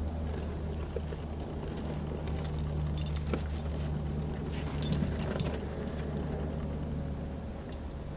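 Light crisp clicking and crunching as a basset hound puppy pushes her nose into fresh snow and trots over it, in clusters that come thickest around the middle, over a steady low hum.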